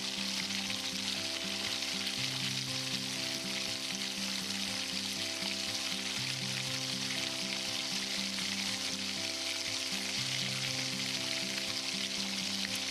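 Chicken frying in oil in a small clay pot, giving a steady, even sizzle, with soft background music of held notes playing underneath.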